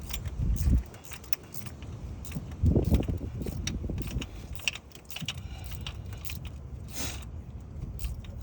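Irregular metallic clicks and clinks of a wrench working as the coolant temperature sensor is tightened into a GM 2.4 L engine, with two low bumps, about half a second and three seconds in.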